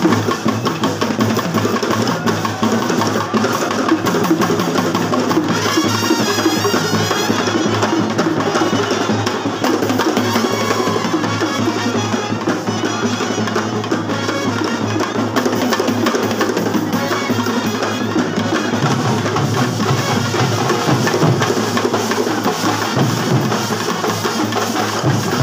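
Kerala bandset (street brass band) playing: drums and cymbals keeping a loud, driving beat under trumpets and other brass.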